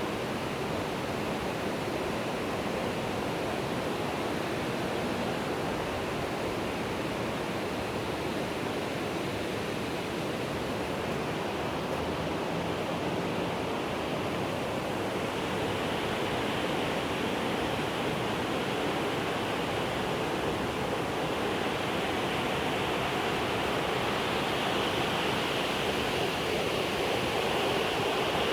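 Steady rushing of flowing water, an even unbroken wash with no distinct splashes.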